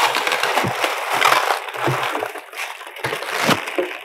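Thin plastic wrapping crinkling and crackling as it is pulled and bunched off a boxed subwoofer. The dense crackle eases off near the end.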